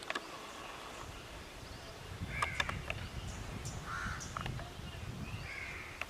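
Birds outdoors giving a few short, harsh calls, about two seconds in, around four seconds and again near the end, over a low rumble and a few sharp clicks.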